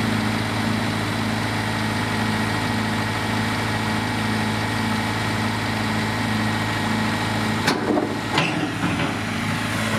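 Yellow tractor loader's engine idling steadily. Near the end come a few sharp clunks as the big square hay bale is set down on the wooden flatbed trailer.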